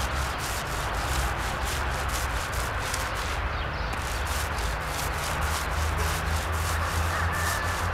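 Paint roller worked back and forth over the rough concrete of a bunker dome: a steady rubbing, with strokes coming a few times a second.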